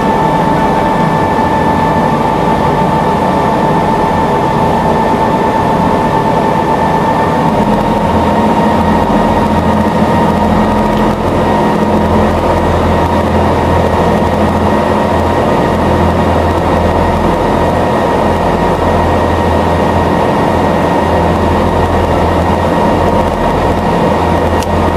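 Passenger boat under way: steady engine drone and rushing water heard on board, with a steady whine that fades after about seven seconds while a low hum grows stronger.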